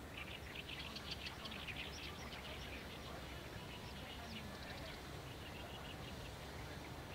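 Birds chirping in quick, short calls, busiest in the first few seconds, over a faint steady low background rumble.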